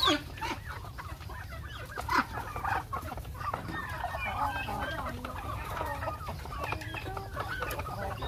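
Backyard poultry flock of chickens and turkeys clucking and calling, many short overlapping calls, with louder calls at the start and about two seconds in, over a steady low rumble.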